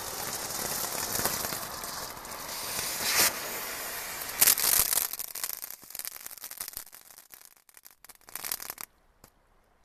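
Aircraft-carrier novelty firework burning on the water: a steady hiss of spark fountain with constant crackling, and two sharp loud cracks about three and four and a half seconds in. The hiss then thins to scattered crackles and sputters out shortly before the end.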